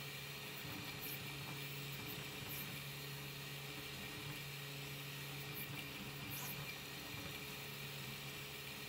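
Prusa i3 MK3 3D printer running: a faint, steady hum of its fans and motors, with a few short high chirps now and then.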